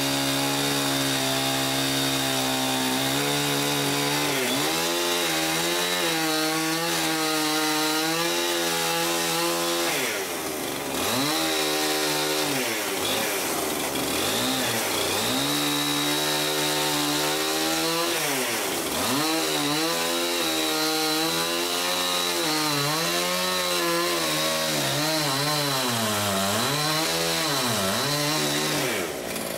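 Chainsaw running hard as it cuts down through the cabin's stacked logs. Its engine pitch drops and climbs back again several times as the chain works through the wood, most deeply about ten and eighteen seconds in.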